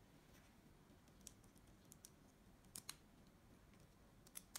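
Small plastic building bricks clicking and snapping as they are handled and pressed together. There are a few faint, sharp clicks: a quick double click a little before three seconds in and another pair near the end.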